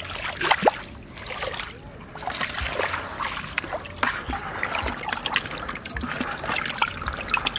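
Hands splashing and sloshing in shallow muddy water, then in a bucket of water holding live fish, with irregular trickles and splashes throughout.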